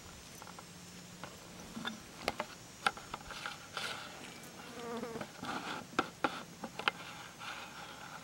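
Flying insects buzzing around the microphone in a steady faint hum that grows louder for a few seconds in the middle. A handful of sharp clicks and rustles sound over it.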